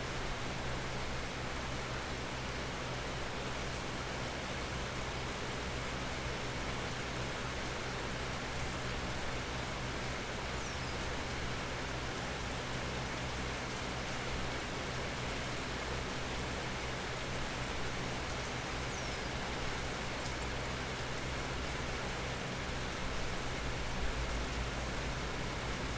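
Steady rain falling, an even hiss of drops that does not let up, with a faint low hum underneath.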